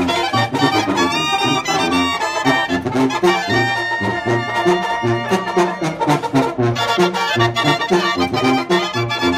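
Mexican banda de viento (brass band) playing: clarinets and trumpet carry the melody over a sousaphone bass line, with a steady beat of percussion strokes.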